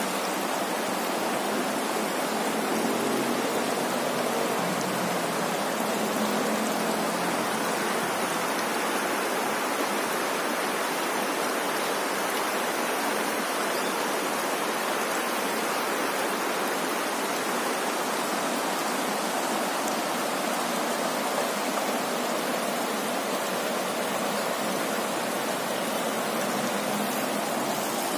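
Shallow river flowing over scattered rocks and stones, a steady, even rush of water.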